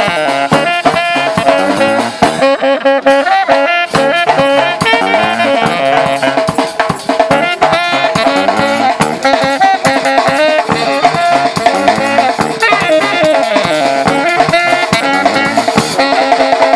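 Live band of saxophones and a drum kit playing a lively tune, the horns carrying the melody over continuous drumming.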